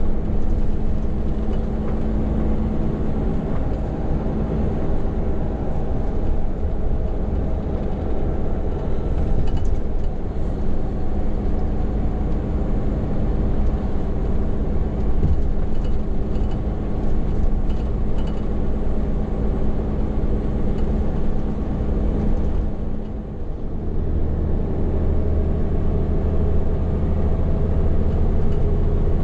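Hino heavy truck's diesel engine running steadily under way, heard from inside the cab with road noise. About three-quarters of the way through the sound dips briefly, then comes back as a deeper, stronger low hum.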